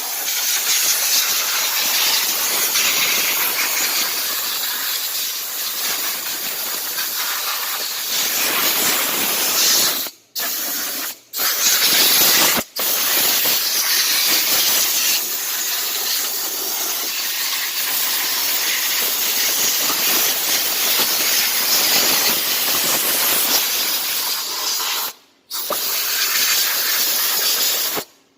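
Loud, steady hiss of a hand-held high-pressure jet, let off and picked up again several times: short breaks around ten to thirteen seconds in and again near the end.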